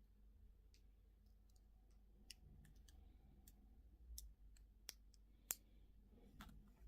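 Faint, sharp clicks and taps of small plastic candy packaging being handled, scattered irregularly, with the loudest single click about five and a half seconds in.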